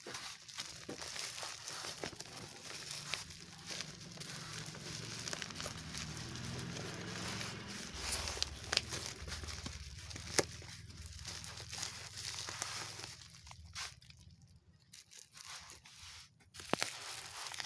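Packaging being torn open and crinkled by hand, a dense crackling rustle with many sharp clicks. From about 13 seconds in it goes quieter, leaving only occasional handling clicks.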